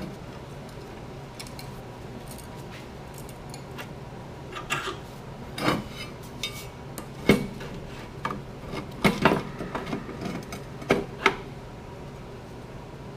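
Metal parts and hand tools clinking and knocking together as they are handled, in irregular taps with the loudest about seven, nine and eleven seconds in, over a steady low hum.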